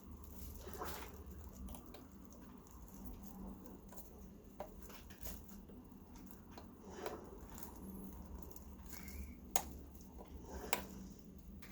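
Faint hand-work sounds: a few light, sharp clicks and soft scuffles of parts being handled, over a low steady hum.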